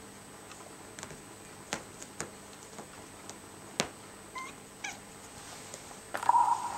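Young Oriental Shorthair kitten giving one short meow near the end, after two faint brief squeaks, with scattered light taps and clicks before.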